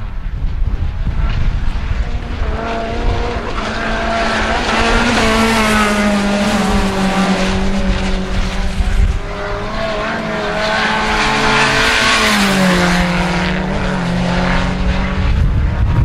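1400cc-class rallycross cars racing at full throttle, their small four-cylinder engines revving up and down in pitch through gear changes and braking, with more than one engine heard at once at times.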